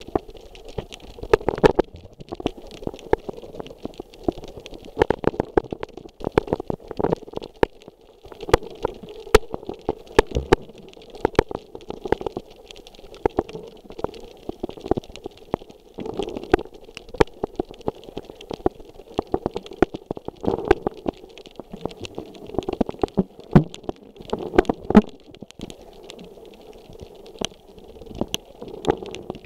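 Underwater sound picked up by a camera in its waterproof housing while snorkeling over a coral reef. Many irregular sharp clicks and crackles sound over a muffled, rumbling water hiss.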